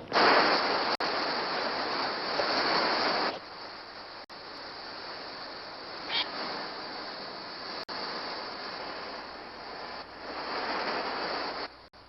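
Sound effects of a massed gull attack: a loud, dense wash of bird noise with no distinct calls, cutting off abruptly about three seconds in, continuing more quietly, swelling again near the end and then cutting off. A short high cry comes about six seconds in.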